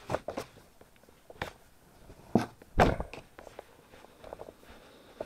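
A T-shirt rustling as hands unfold and shake it out: several short rustles, the loudest about three seconds in.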